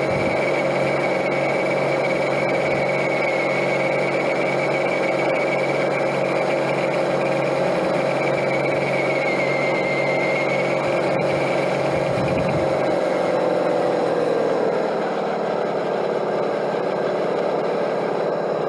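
Onboard drive of a 1/12-scale radio-controlled DUKW model on a King Kong CA30 6x6 truck chassis: a steady electric motor and gearbox whine over tyre noise on gravel. About three-quarters of the way through, the whine drops in pitch as the model slows.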